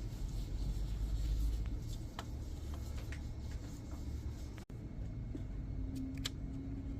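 Scattered light clicks and small scrapes from hands and tools working on a laptop's parts, over a steady low rumble. The sound drops out for an instant about two thirds of the way in.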